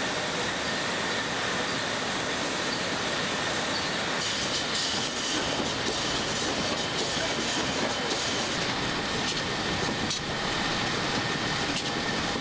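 Beer bottling line running: glass bottles rattling along conveyors and packing machinery clattering steadily, with a few sharp clicks near the end.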